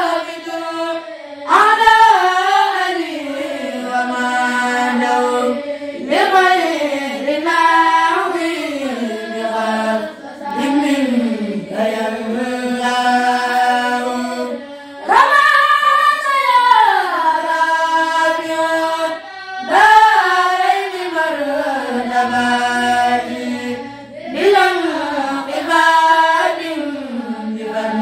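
Unaccompanied devotional chanting of a khassida by a kourel of boys: a melismatic vocal line in long phrases of a few seconds each, the pitch swooping up or down and then held, with short breaks between phrases.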